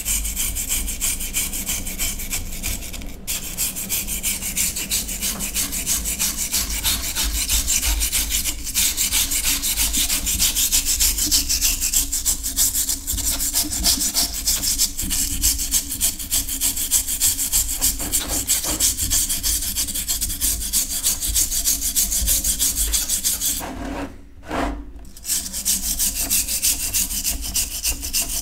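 A brush scrubbing a rusty cast-iron sad iron sitting in a tray of liquid, in rapid, steady back-and-forth strokes. It pauses briefly a few seconds before the end, then carries on.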